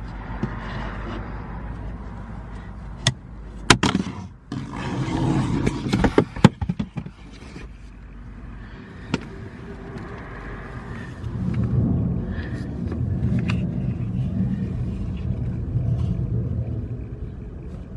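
Low vehicle rumble from the Jeep Renegade, with several sharp clicks and knocks of plastic being handled between about three and seven seconds in. The rumble grows louder from about twelve seconds in.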